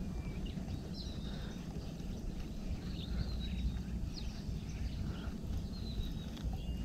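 Scattered short bird chirps and whistles over a low, steady rumble.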